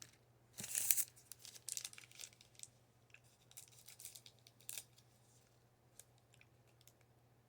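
Baseball cards and their packaging being handled: faint rustling and crinkling strokes, loudest about a second in and repeating for a few seconds, then a few light clicks.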